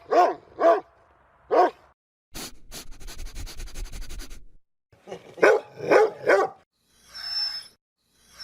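Dog barking: three sharp barks in the first two seconds, then a rough, rasping noisy stretch of about two seconds, then three more barks in quick succession about five to six seconds in. Two fainter, hissy sounds follow near the end.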